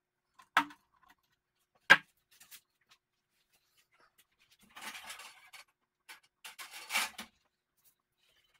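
Two sharp clicks about a second apart, then two short stretches of rustling and scraping: plastic parts of an LED TV's backlight assembly being clipped into place and handled.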